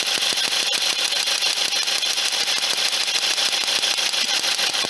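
Bosch ignition coil from a Ford Focus 2.0 Duratec, pulled off its spark plug and held just above the aluminium fuel rail, snapping with high-voltage sparks in a fast, even ticking over the running engine. A steady spark like this shows the coil is good.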